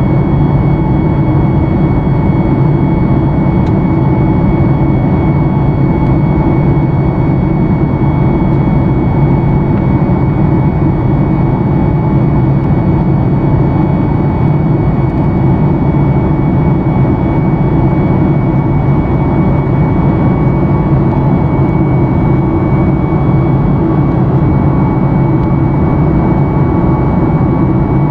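Cabin noise of a Boeing 737 MAX 8 in climb, heard from a window seat beside the engine: the CFM LEAP-1B turbofan's steady low rumble and rush of air, with a thin steady whine on top.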